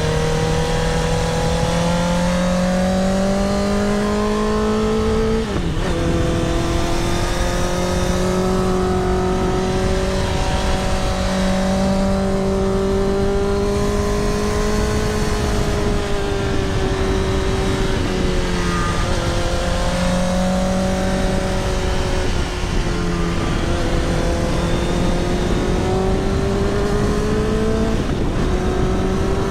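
Motorcycle engine running at cruising speed, its pitch slowly rising and then dropping at gear changes a few times, under a heavy low wind rumble on a helmet-mounted microphone.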